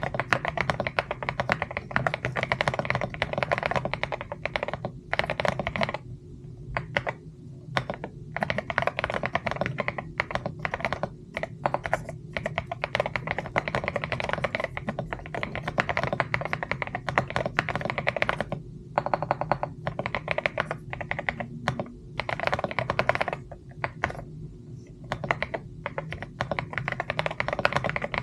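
Mechanical keyboard being typed on in fast runs of clacky keystrokes, with brief pauses between runs, over a faint steady low hum.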